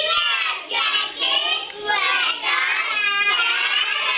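A group of young children singing together in high voices.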